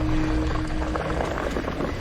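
Background music, with a held note that stops about halfway through.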